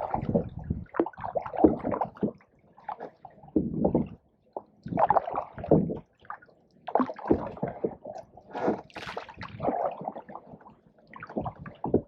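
Canoe paddles dipping into and pulling through pond water, splashing and dripping in uneven strokes about one a second, with brief pauses.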